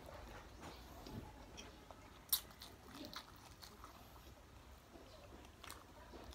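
A person chewing and biting mouthfuls of fried chicken and rice, with scattered short sharp clicks and smacks, the loudest about two and a half seconds in.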